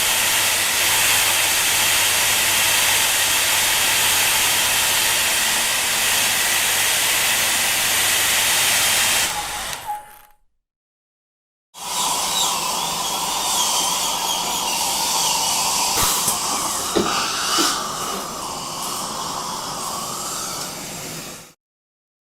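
Electric power drill running steadily for about ten seconds, then stopping. After a short silence a second drill recording runs steadily with a whine for about ten seconds, with a few sharp knocks partway through.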